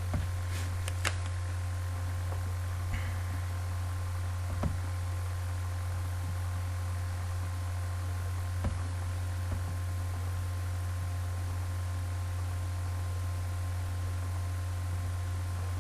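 Steady low electrical hum under a constant hiss, with a few faint clicks.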